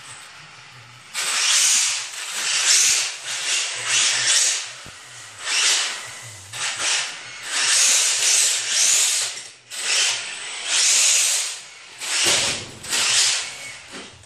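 Brushless-powered Tamiya Hotshot RC buggy doing circles on a concrete floor: about a dozen swells of high-pitched motor whine and hissing tyre scrub, one burst of throttle after another, starting about a second in.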